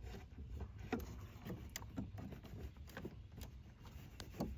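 Faint, irregular clicks and small knocks of pliers gripping and working a plug-in turn-signal flasher relay loose from its socket under the dash.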